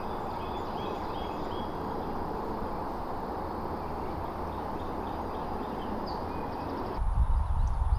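Outdoor field ambience: a steady hiss of background noise with a few faint bird calls. About seven seconds in, a gusty low rumble of wind on the microphone comes in, with scattered bird chirps over it.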